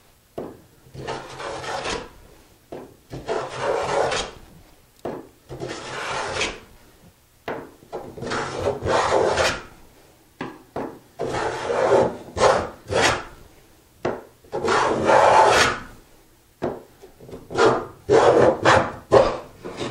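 Hand plane strokes along a board's edge: an unfenced rabbet plane shaving wood as it squares up a rabbet, in a series of strokes a second or two long, shorter and quicker near the end.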